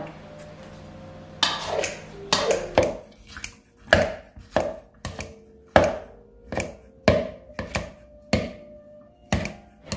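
Kitchen scissors snipping through thawed, soft strawberries in a plastic mixing bowl: a string of about fifteen short, sharp cuts at an uneven pace of one or two a second, starting about a second and a half in.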